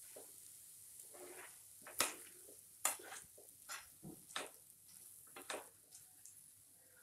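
A spatula stirring and tossing vermicelli upma in a nonstick frying pan: soft scraping with about half a dozen irregular sharp scrapes and knocks against the pan. A faint sizzle comes from the still-hot pan.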